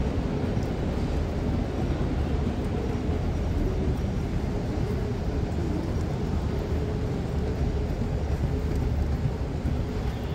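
Steady low rumble of a moving walkway running underfoot, with a faint steady hum over it.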